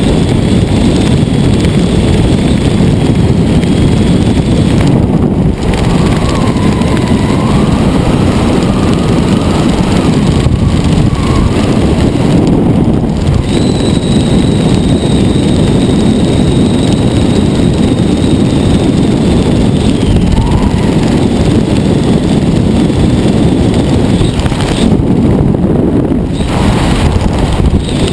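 Heavy, steady wind noise buffeting a helmet-mounted camera's microphone during a parachute descent under canopy, with a faint thin wavering whistle at times.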